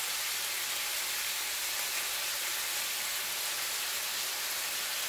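Skinless chicken pieces sizzling steadily in a frying pan on a gas hob, an even hiss.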